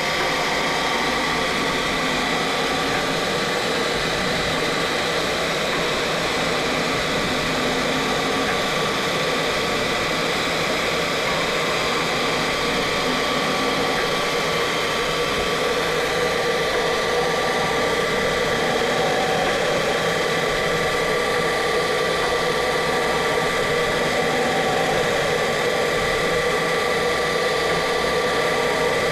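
CNC engraving machine running during a laser-diode pass over wood: a steady machine whir and hiss with a constant high whine, unchanging throughout.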